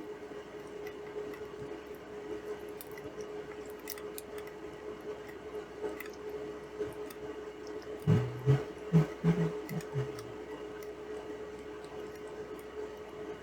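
Steady electrical hum with faint clicks of small tools being handled at a soldering bench. About eight seconds in comes a short run of louder, low, muffled sounds lasting a couple of seconds.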